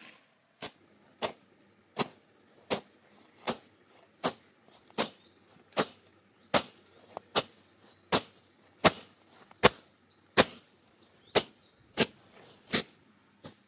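Machete slashing through grass and weeds close to the ground: sharp cutting strokes in an even rhythm, a little more than one a second.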